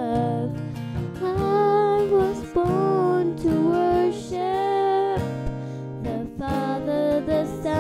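A young girl singing a praise song, holding long notes in short phrases, over strummed acoustic guitar accompaniment.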